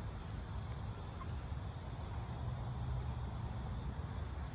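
Faint, short, high bird chirps about once a second over a steady low rumble.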